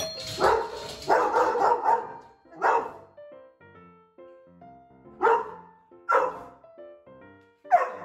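Australian Shepherd barking: a quick run of barks in the first two seconds, then single barks a second or two apart.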